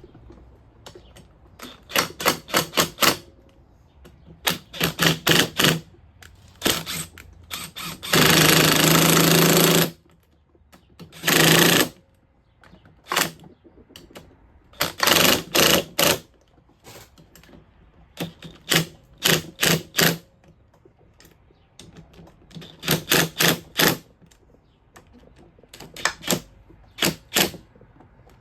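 Power driver running down the crankcase bolts of a Honda AF16 two-stroke engine in short pulsed bursts, about every two to three seconds, with two longer continuous runs around eight and eleven seconds in.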